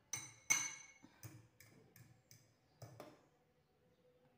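A metal fork clinking against a ceramic bowl while a dough ball is rolled in egg white: about eight light clinks over three seconds, each ringing briefly, the two loudest in the first second.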